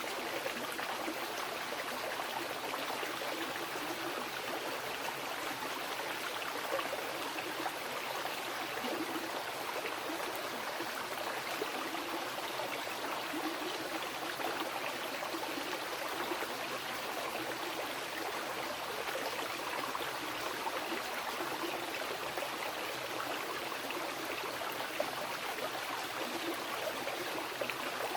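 Mountain river rushing and splashing over rocks: steady, even water noise with fine splashes and gurgles throughout.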